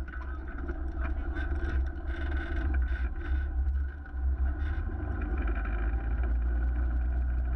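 Polaris RZR S 800 side-by-side driving across lake ice, its engine running steadily under heavy wind buffeting on the microphone.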